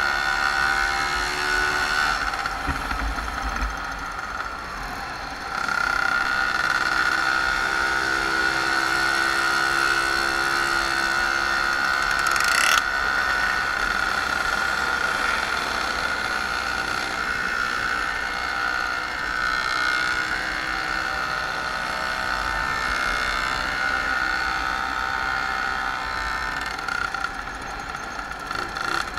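Small two-stroke moped engines running steadily at riding speed, a high steady drone, with other mopeds close by. The drone drops away briefly a few seconds in, then picks up again.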